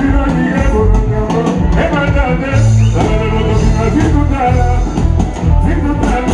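Live Congolese ndombolo band music played loud through a PA system, with heavy bass and singing over it.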